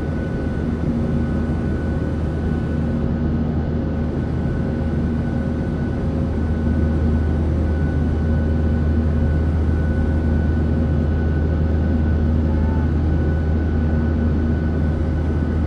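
Jet airliner cabin noise in cruise: the low, steady drone of the engines and rushing air, with a few faint steady hums above it.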